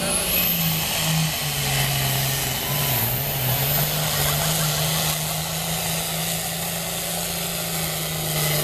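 Pulling tractor's diesel engine running flat out under heavy load as it drags the weight-transfer sled down the track. The engine's pitch holds steady, dipping briefly about three seconds in.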